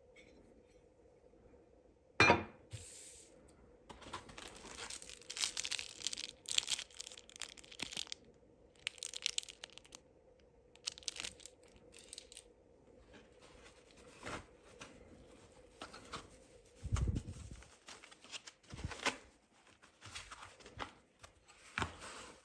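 Model packaging being opened by hand: repeated tearing and crinkling of paper or plastic wrapping. A sharp click comes about two seconds in, and a dull thump follows later.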